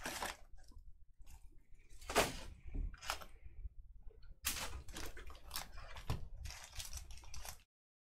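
Trading card packs and cards being handled: a series of short rustling, crinkling swishes, several in a row in the second half, then the sound cuts off suddenly near the end.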